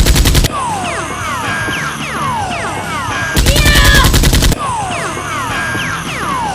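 Bursts of rapid automatic gunfire sound effects, each about a second long: one right at the start and another about three and a half seconds in. Between them come repeated falling whistling tones.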